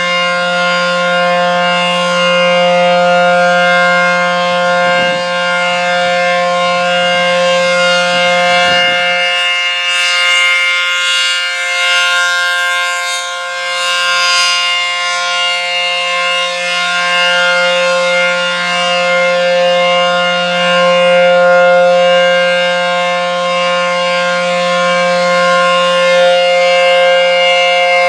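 ACA Penetrator rotating tornado siren sounding the Alert signal: one long steady tone at a fixed pitch, its loudness slowly swelling and fading.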